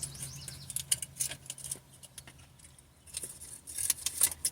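Irregular crinkling and clicking from a foil-wrapped shrimp taco being handled while it is eaten, busiest near the start and again about three seconds in, over a faint steady low hum.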